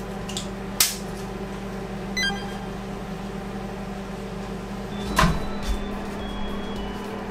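Steady low electrical hum with a sharp click about a second in as a small drink bottle's cap is snapped open, a short run of high beeps around two seconds, and a loud clunk about five seconds in as the microwave oven's door is opened.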